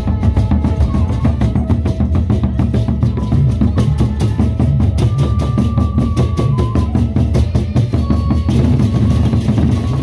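A Sasak gendang beleq ensemble playing: large double-headed barrel drums beaten with sticks in fast, dense rhythms, with a few held tones above the drumming.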